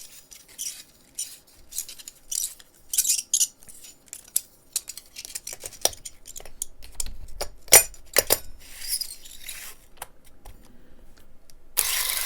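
Small clicks, taps and rustles of 16mm film and the take-up spool being threaded and seated inside a Beaulieu R16 movie camera, with a sharper click about eight seconds in. Near the end the camera's clockwork film drive starts running steadily.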